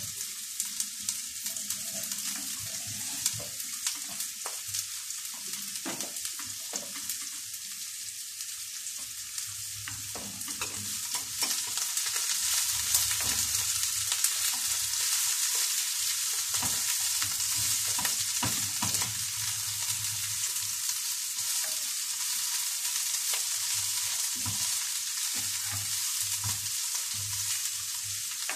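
Whole corn-flour-coated fish frying in hot oil in a pan, a steady sizzle and crackle that grows louder about twelve seconds in as the fish goes into the oil. A few light knocks are heard in the first half.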